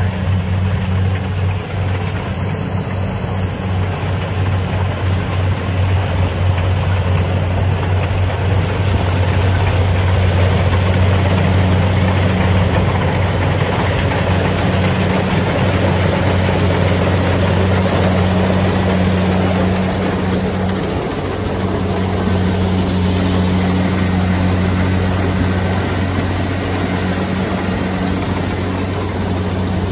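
Kubota DC-70 Plus combine harvester running steadily under load as it cuts and threshes rice: a deep, even diesel engine drone with the noise of the cutting header and threshing mechanism over it.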